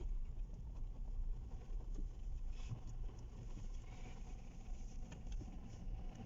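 Car driving slowly, heard from inside the cabin: a low, steady engine and road rumble with a few faint ticks.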